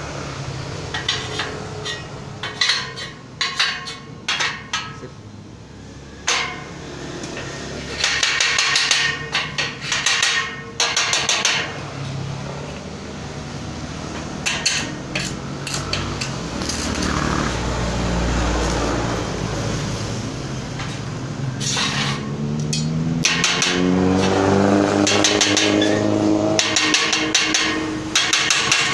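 Hollow square steel tubes clanking and knocking as fence balusters are set against a steel spacer block and tapped into place, with short bursts of crackling from stick-welding tack welds. In the second half an engine runs in the background, rising in pitch.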